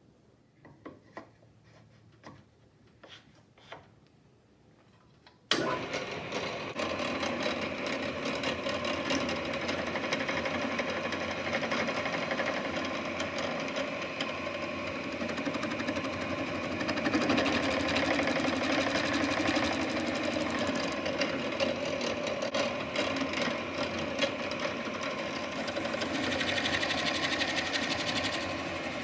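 A few light taps and clicks, then an electric power tool starts abruptly about five seconds in and runs steadily to the end, a small motor whirring with slight rises and falls in level.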